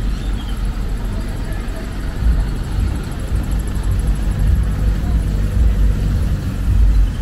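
Street traffic: cars and pickup trucks driving past, a steady low rumble of engines and tyres.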